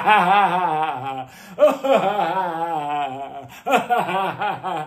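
A man's drawn-out, exaggerated laughing in three long runs, the pitch wobbling up and down through each.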